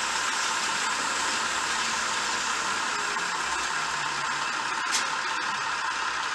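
Märklin model train running slowly along the track: a steady whirring hiss of motor and wheels, with one sharp click about five seconds in.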